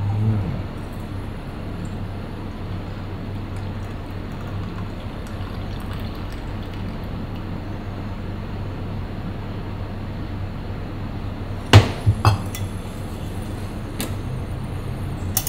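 Coffee poured from a stovetop moka pot into a cup, a steady pour, followed by a few sharp clinks near the end.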